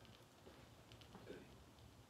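Near silence: room tone with a faint low hum and a few faint scattered ticks.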